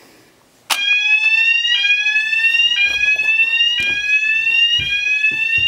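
Electronic fire alarm sounder going off about a second in. It gives a loud tone that rises in pitch over about a second, then drops back and rises again, over and over.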